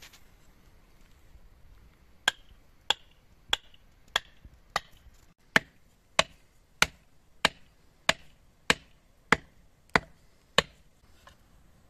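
Metal-headed hammer striking the top of a wooden stake, driving it into hard dirt ground: about fourteen sharp knocks, evenly spaced a little over half a second apart, starting about two seconds in.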